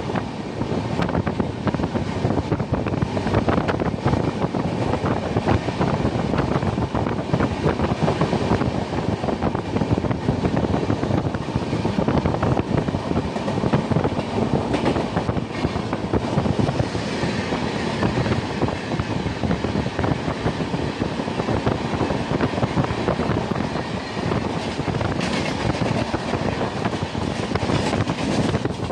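Indian express passenger train running at speed, heard from aboard a coach: a steady rumble of wheels on rail with rapid clickety-clack of the wheels over rail joints. Near the end, an oncoming train passes on the adjacent track, adding a brighter clatter.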